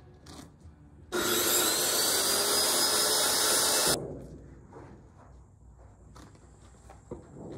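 A power saw cutting through material, a loud steady rasp for about three seconds, followed by quieter scattered knocks and handling sounds.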